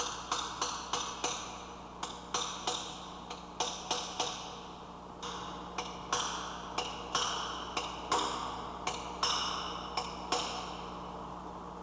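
A hammer strikes a steel punch held against the sprocket retaining nut's lock tab, bending the tab over to lock the nut. The metal taps ring and come in runs of about three a second, stopping shortly before the end.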